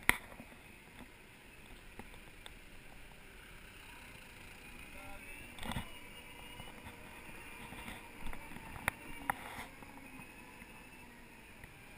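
Segway personal transporter riding along a city street: steady low road and motor noise, a faint high whine from about four seconds in, and a few sharp knocks.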